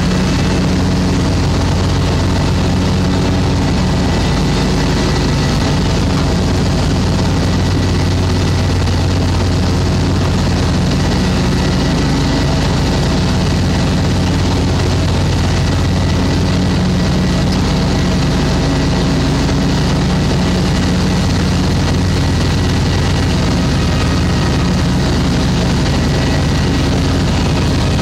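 Spartan SRT XD zero-turn mower's 33-horsepower Briggs & Stratton Vanguard V-twin engine running steadily while mowing.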